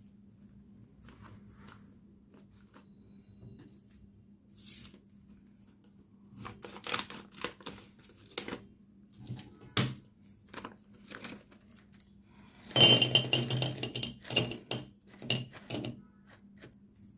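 Plastic candy wrappers and packaging crinkling, with hard candies clicking as they are handled. The clicks are scattered at first and build to a loud, dense burst of crinkling and rattling a little past the middle.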